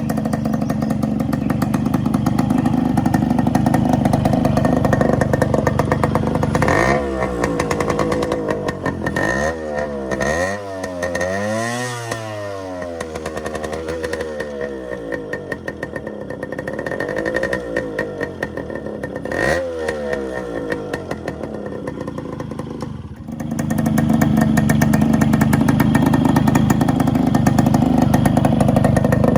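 Yamaha RX135 two-stroke motorcycle with a modified muffler, running. In the middle it is revved up and down several times in quick rises and falls of pitch; near the start and again from about 23 s it runs steadier and louder.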